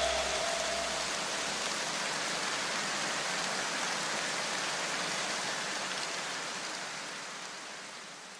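A steady, even hiss that slowly fades away near the end, with a faint low hum dying out in the first second.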